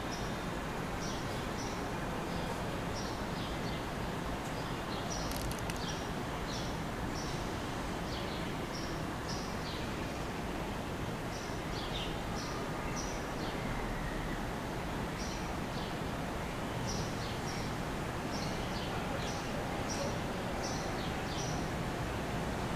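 Small birds chirping: short high chirps repeated in loose series throughout, over a steady low background noise.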